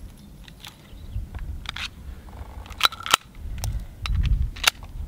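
Walther PPK pistol being worked by hand during a failure to fire: a string of sharp metallic clicks and clacks from its action, the loudest about three seconds in.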